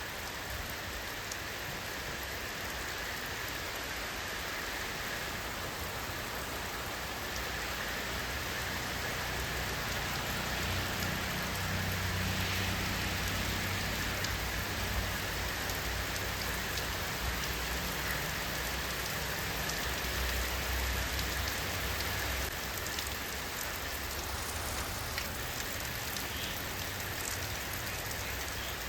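Steady rainfall: a dense, even hiss of drops on surfaces. A low rumble swells in about ten seconds in and fades out around twenty-two seconds.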